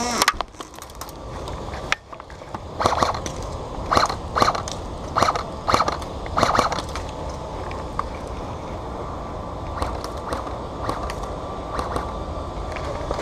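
Footsteps crunching on gravelly dirt, six steps at a walking pace between about three and seven seconds in, over a steady rumble of wind on the head-camera microphone. Fainter single clicks follow in the second half.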